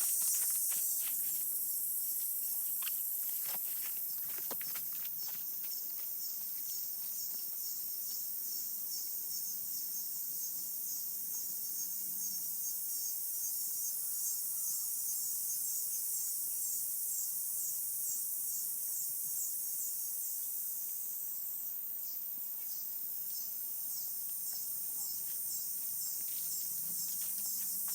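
Chorus of crickets and other insects: a steady, high, rapidly pulsing trilling. A few faint clicks come in the first few seconds and again near the end.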